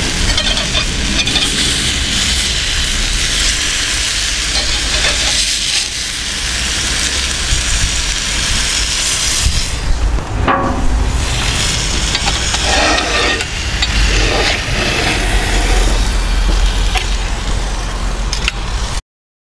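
Beef burgers sizzling in a hot, oiled cast iron grill skillet, a steady frying hiss with the odd clink of metal tongs as they are turned. The sound cuts off abruptly near the end.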